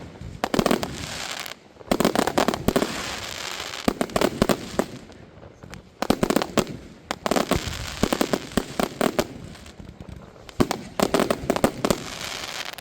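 Fireworks display: clusters of sharp bangs and crackle every one to two seconds, with quieter gaps between.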